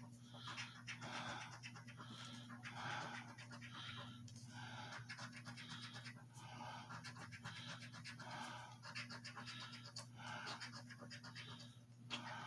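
Coin scraping the latex coating off a scratch-off lottery ticket on a hard table: quick, faint back-and-forth scratching strokes, about two a second in short runs with brief pauses.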